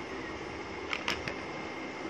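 Steady background whir and hiss, with three light clicks close together about a second in.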